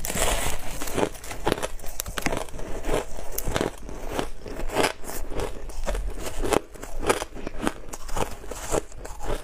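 Biting and chewing chunks of packed, snow-like frozen ice: a continuous run of sharp crunches and crackles.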